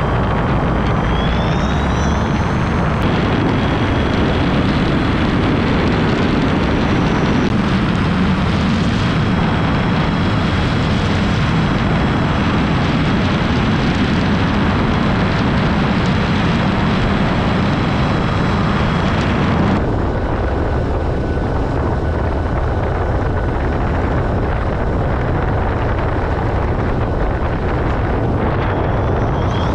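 Geiger HPD20 electric motor driving the trike's pusher propeller in flight, a steady loud propeller drone with a faint high motor whine, mixed with wind rush. The low part of the drone drops a little about two-thirds of the way through.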